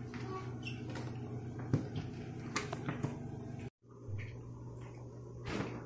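Light knocks, clicks and rubbing from a plastic drip coffee maker being handled and wiped with a cloth, over a steady low hum. The sound cuts out for a moment about two-thirds of the way in.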